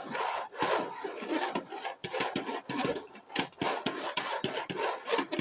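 Upturned plastic bowls being slid and shuffled across a wooden tabletop, scraping, with many quick irregular knocks and clatters.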